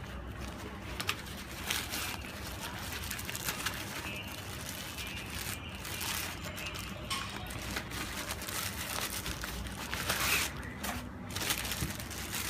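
Packaging rustling and crinkling as a tripod is unpacked and handled, with scattered light clicks.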